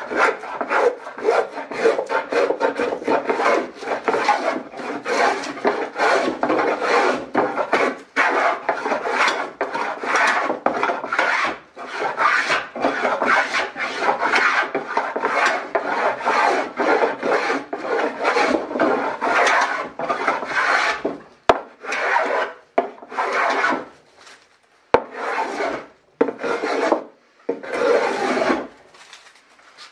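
Small hand plane shaving a wooden board: rapid, repeated strokes, each a dry rasping hiss of the blade taking a shaving. In the last third the strokes come one at a time with short pauses between them.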